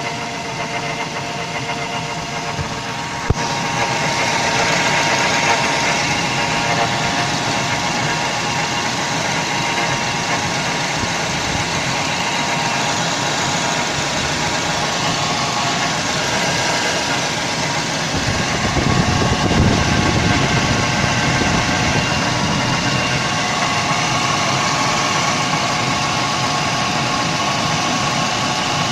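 Mazda 3 engine idling with a steady hum from a drive-belt roller (pulley), the sign of a worn roller bearing. A sharp click comes a few seconds in, after which the sound is louder.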